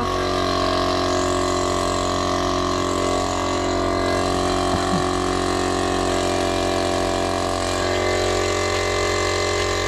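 Paint-spraying air compressor running steadily: a constant, even machine hum with no change in speed.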